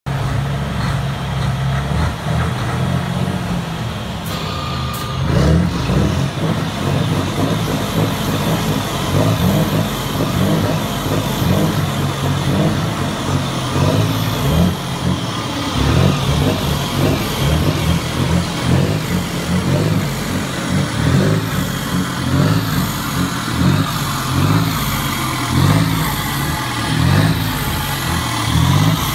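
Mercedes-Benz Actros truck's straight-six diesel engine, fitted with side-pipe exhausts, running and being blipped again and again in short revs, with a loud, deep exhaust note that has a distinct V-engine sound despite the straight six.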